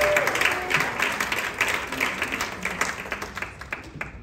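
Audience applauding, with a voice or two calling out at the start; the clapping fades away toward the end.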